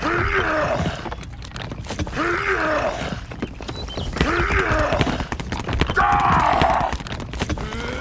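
A gruff voice straining and groaning with effort four times, each about a second long and about two seconds apart: the dubbed sound of heavy pushing.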